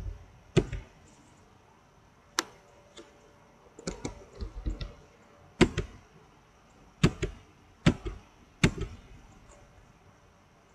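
Computer keyboard keystrokes: about a dozen sharp, separate key taps at an uneven pace, some in quick pairs, stopping about nine seconds in.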